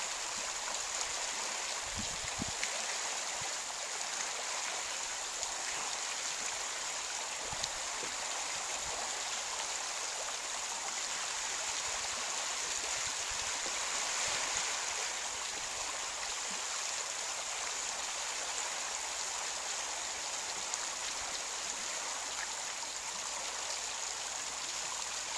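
Small waves lapping steadily at the loch shore, a continuous rush of water.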